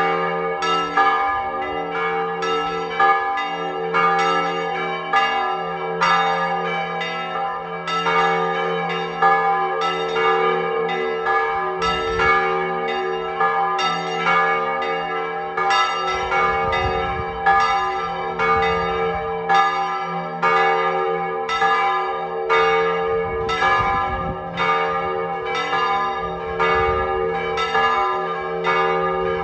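The three church bells of a belfry, probably cast by the Mari foundry, swing and ring together in a full peal (plenum). Their strikes overlap continuously, several a second, over a sustained ringing hum.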